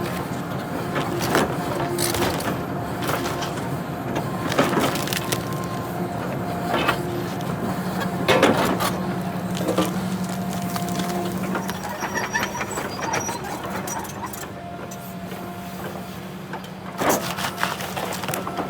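Excavator engine and hydraulics running steadily while a stump shear cuts into a tree stump. Wood cracks and splinters sharply several times, loudest about eight and a half seconds in.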